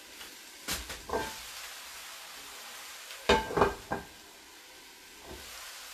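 Jackfruit cheesesteak filling sizzling in a skillet under an upside-down pan used as a lid, with a little water added to steam-melt the cheese: a steady soft hiss. A few short knocks and handling noises come about a second in and again around three and a half seconds in.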